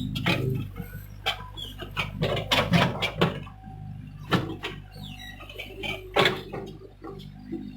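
Hyundai excavator's diesel engine running with a steady low hum, under irregular sharp knocks and scrapes from the bucket digging.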